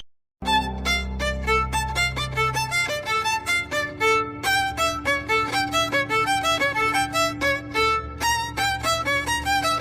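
Background music: a fast instrumental tune of quick, short notes over a low bass, starting about half a second in after a brief silence.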